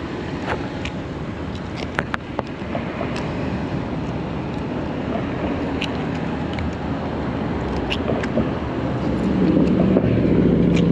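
Steady rumble of wind and motor noise, with scattered small clicks; a motor's hum swells louder near the end.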